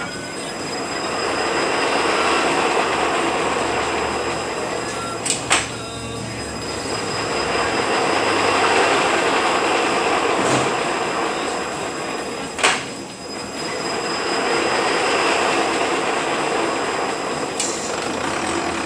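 Rebuilt Eaton Fuller RTLO-18918B 18-speed truck transmission running on a test dyno: a steady gear whine and rumble that swells and eases in long waves, with sharp clicks a few seconds apart.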